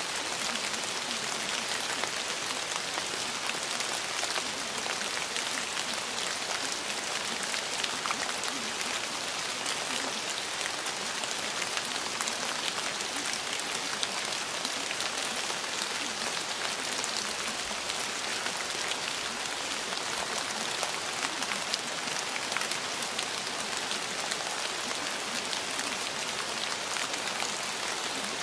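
Steady rain: a dense, even patter of drops with no let-up.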